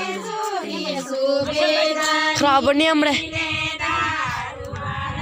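Group of women singing a Garhwali Holi folk song in chorus, several voices overlapping. In the second half, low rumbling handling noise on the jostled phone microphone runs under the singing.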